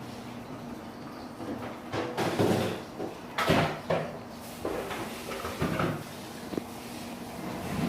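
A run of household handling noises: a series of knocks and rattles over about four seconds, loudest about three and a half seconds in.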